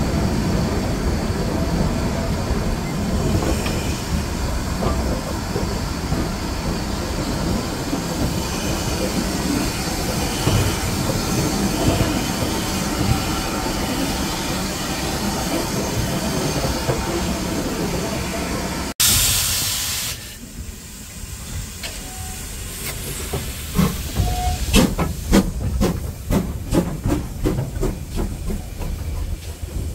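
Steam train running slowly through a station, heard from a carriage window: a steady rumble and rattle. Then a short burst of hiss, and the GWR small prairie tank locomotive 5541 passes close by with a run of sharp clicks and clanks, two or three a second.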